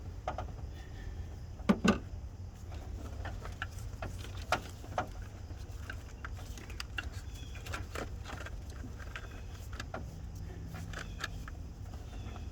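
Scattered light clicks and knocks of hands handling a distributor cap and engine parts, the loudest a quick double knock about two seconds in, over a low steady rumble.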